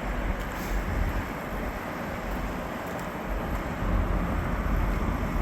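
Steady noise of road traffic from nearby highways: an even hiss over a low, uneven rumble.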